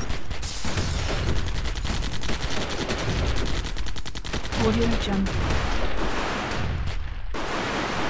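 Gunfight of machine guns, rifles and pistols firing together: a dense, continuous mix of overlapping shots. An automatic weapon fires a fast, even burst for a second or so around the middle.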